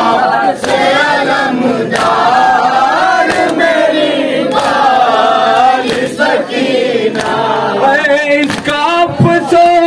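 Crowd of male mourners chanting a noha refrain in unison, with sharp slaps of hands striking chests (matam) at a steady beat. Near the end a single voice with a wavering pitch comes to the fore.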